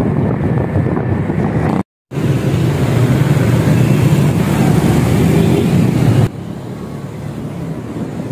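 Wind rushing over the microphone and road traffic engine noise, recorded from a moving vehicle. The sound cuts out completely for a moment about two seconds in and turns noticeably quieter about six seconds in.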